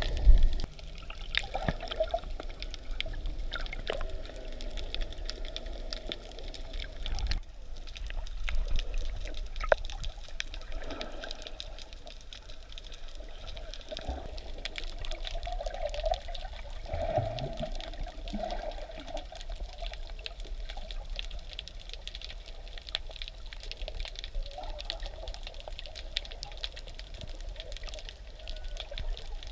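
Water sloshing and bubbling around a camera held just under the surface while snorkelling, with a constant crackle of small clicks and a few louder knocks near the start.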